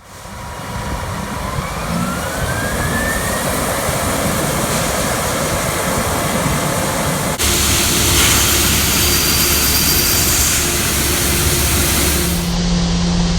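Case IH 8230 combine running, a steady heavy machine drone with a whine that rises in pitch over the first few seconds as it spools up. About seven seconds in the sound switches abruptly to a louder, hissier running noise with a heavier low rumble.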